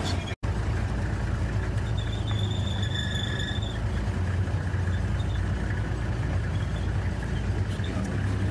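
Safari vehicle's engine idling with a steady low hum. The sound cuts out for an instant about half a second in.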